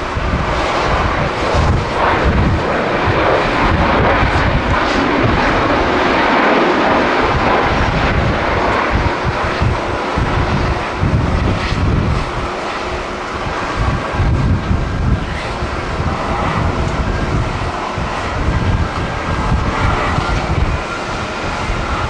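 Jet engine noise from a Boeing 737-800's CFM56 turbofans as the airliner rolls along the runway. The steady rush is loudest over the first several seconds and eases a little after the middle. Gusty wind buffets the microphone throughout.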